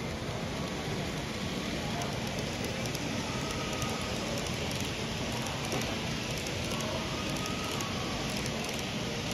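N gauge model train, blue 24-series sleeper coaches, rolling past on the track: a steady hiss of the small wheels running on the rails.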